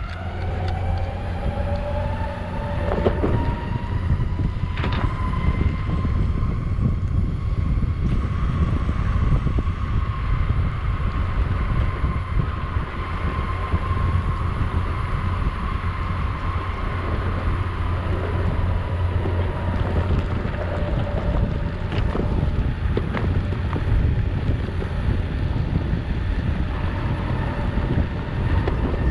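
Metroboard electric skateboard riding along, its motor whining as it goes, the whine rising over the first few seconds as it speeds up and then holding steady. Under it, the rumble of the wheels rolling on concrete and wind on the microphone, with a few sharp clicks.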